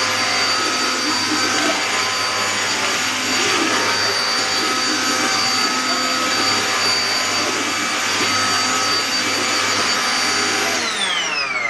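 Rowenta cordless stick vacuum running steadily with a high motor whine, then switched off near the end, its whine falling as the motor spins down.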